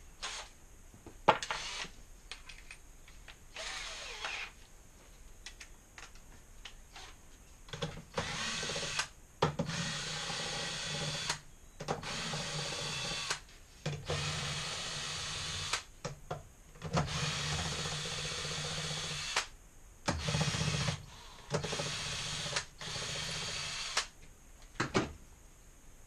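A cordless drill working on a compressor casing held in a vise, run in about seven bursts of one to two seconds each. Before the drilling starts there are scattered sharp knocks and clicks of metal being handled.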